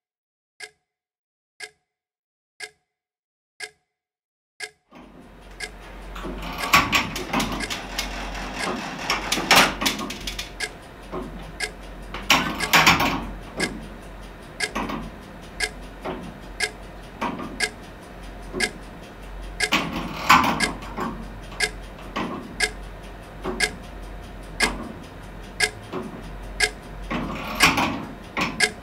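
A clock ticking steadily, about once a second. About five seconds in, a louder hissing background sound joins and swells up and down every few seconds, and the ticking carries on through it.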